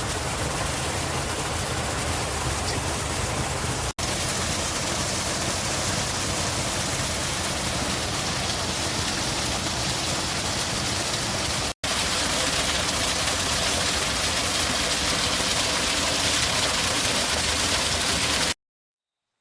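Steady rushing of water, like a stream or heavy rain, with no distinct calls in it. It drops out for an instant twice, then cuts off abruptly near the end.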